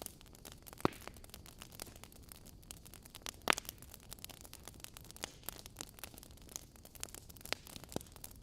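Wood fire burning in a fireplace: a dense run of small crackles over a faint hiss, with a few sharper pops from the logs, the loudest about three and a half seconds in.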